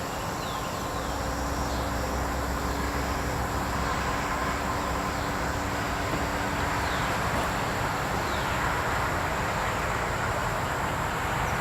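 Steady outdoor background noise: a low rumble like passing road traffic, strongest in the first few seconds, with a thin, steady high-pitched whine over it.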